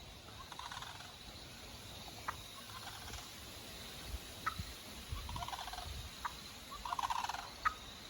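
Wild turkeys gobbling in the distance: four rapid rattling gobbles a couple of seconds apart, with short sharp single notes between them.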